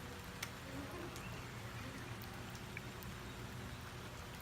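Steady patter of rain falling, with a few faint sharp clicks of drips.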